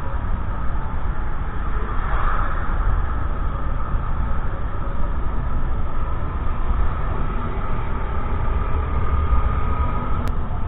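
Honda Monkey's small single-cylinder four-stroke engine running steadily while riding, with heavy wind rumble on the helmet or bike-mounted action camera's microphone.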